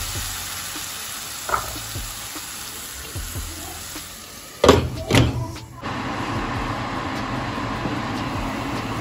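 Onion-tomato masala sizzling in a non-stick kadai, then a glass pan lid set down on it with two loud knocks about five seconds in, followed by a steady even noise.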